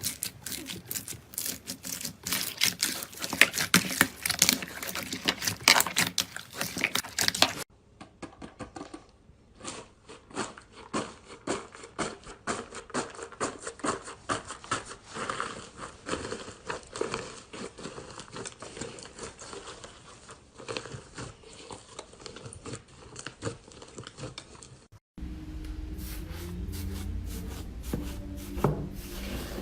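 Slime being squeezed and stretched by hand, giving dense runs of small crackling clicks and pops. Near the end a steady low hum sits under the crackling.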